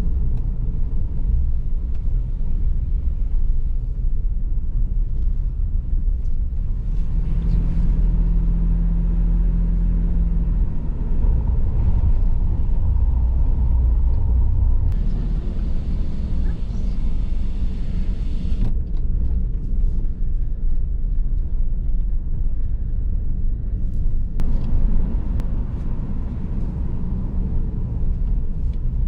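Road vehicle on the move: a steady low rumble of engine and road noise, with a brief steady engine hum partway through.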